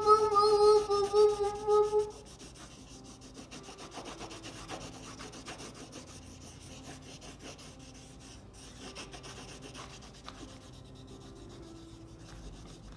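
A steady held note for about the first two seconds, then a crayon or pen scratching and rubbing on workbook paper as a small child colours in a drawing of an octopus, with many small ticks from the strokes.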